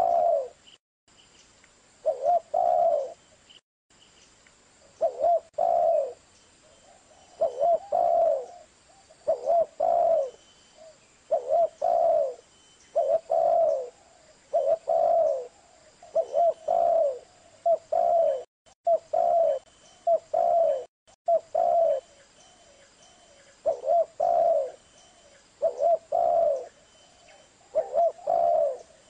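Spotted dove (tekukur) cooing, repeating its short phrase of several low notes about every two seconds.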